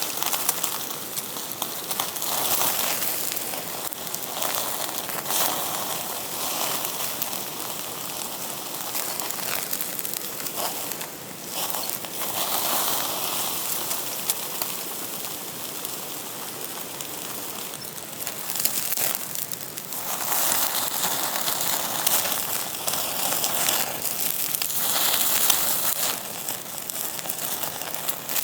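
Wood campfire crackling, with many small pops over a steady hiss that swells and fades every few seconds.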